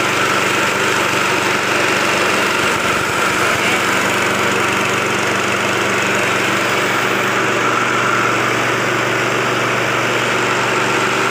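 KD 500 WG mini rice mill running steadily while milling rice, a continuous even mechanical drone.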